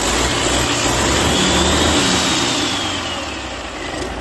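MAN inline-six diesel engine running out of its vehicle on a test stand. A faint high whine rises and falls over the middle, and the engine sound eases off a little about three seconds in.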